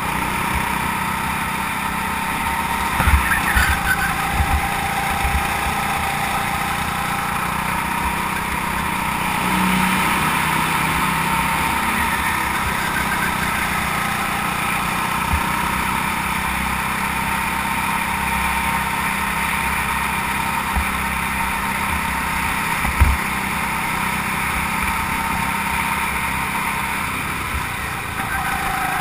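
Go-kart engine running steadily at speed, heard from on board the kart, its pitch shifting only slightly through the corners. A few sharp knocks come about three seconds in and once more about two-thirds of the way through.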